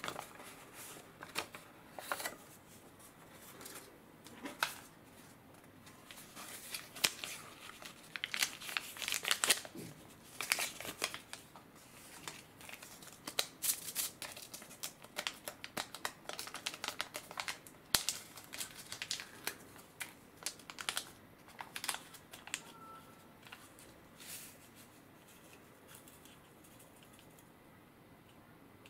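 Close crinkling and rustling of a paper fortune slip and a small plastic packet handled and torn open, in irregular clusters of crackles that thin out near the end.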